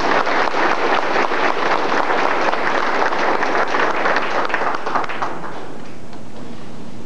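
Audience applauding, many hands clapping at once, dying away about five seconds in.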